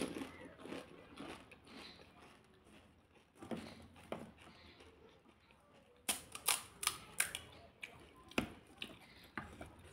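Crunch of a crisp, filled pani puri shell bitten in the mouth, followed by chewing. About six seconds in comes a run of sharp cracks as fingers break open the hollow fried puri shells.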